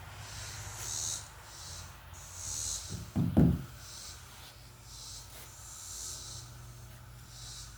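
Heavy breathing: a hissing breath comes about every second and a bit, with one short, low thump a little over three seconds in that is the loudest moment.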